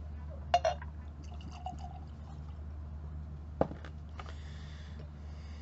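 Whisky being poured from a bottle into a tasting glass, with a clink about half a second in and a single sharp knock about three and a half seconds in.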